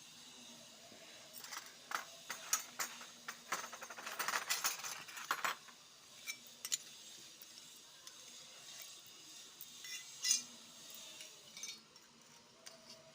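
Small toy kitchenware pieces clicking and clinking as they are handled, with a quick run of clinks about four to five and a half seconds in, then a few scattered taps.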